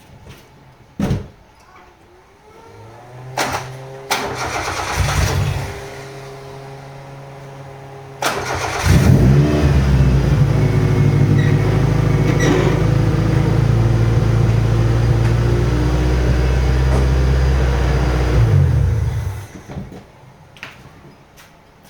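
Car engine, likely the Corolla's 4A-GE four-cylinder, cranked and started. A few clicks and a hum come first, then cranking; the engine catches about eight seconds in, runs steadily for about ten seconds, then is switched off.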